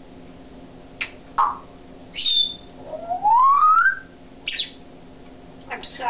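African grey parrot making a few short high chirps and clicks, then a long whistle rising steadily in pitch about three seconds in, the loudest call, followed by another short chirp.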